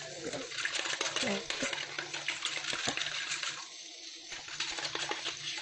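Fork beating raw eggs in a bowl, with quick clinks against the bowl that let up briefly past the middle, over a steady low hum.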